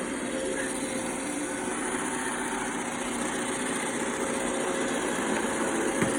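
Robot vacuum cleaner running, a steady motor whir with hiss. There is a single short knock near the end.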